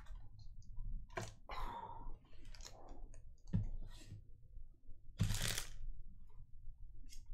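Foil Pokémon booster pack wrappers crinkling and tearing open and cards being handled: a string of short crackles and clicks, the loudest about five seconds in.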